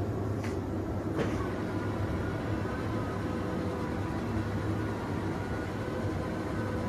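Steady low mechanical hum of machinery, with two short clicks about half a second and a second in, as a motorised roll-up fire curtain begins winding up off the floor.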